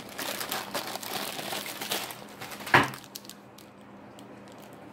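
Plastic chocolate-bar wrapper on a Nestlé Aero bar crinkling as it is handled, with one sharp, loud crackle near three seconds in, then quieter rustling and a few small clicks.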